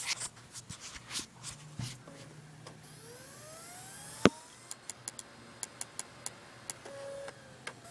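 MacBook Pro slot-loading CD drive reading a disc being copied into iTunes: rising whines as the disc spins up, a loud click a little past four seconds in, and a run of short sharp clicks after it. The owner calls the drive bad, though it keeps working.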